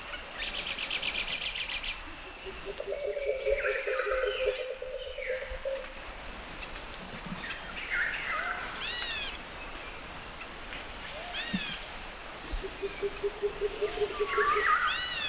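Wild birds calling: a fast rattling trill near the start, then repeated high arching chirps several times, and two spells of rapid buzzy lower calls.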